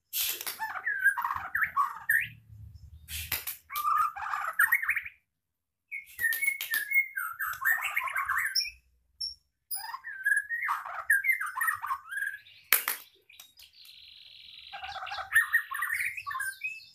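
Caged white-rumped shama (murai batu) singing hard: fast phrases of varied whistled notes with sharp snapping 'shots', broken by short pauses, and a steady high trill held for about a second and a half late on. The bird is in moult, still growing its tail, but keeps singing.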